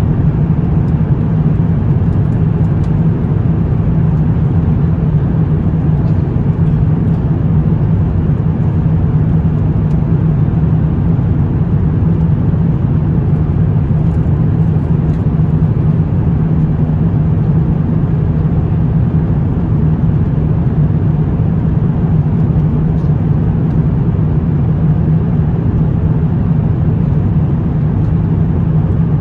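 Jet airliner cabin noise in flight: a steady, even rumble of engines and rushing air, heard from inside the cabin.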